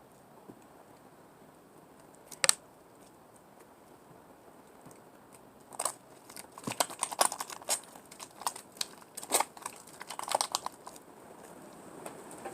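Sticky homemade glue slime being kneaded and pulled by hand, giving a single sharp click about two and a half seconds in, then a dense run of clicks and crackles through the second half.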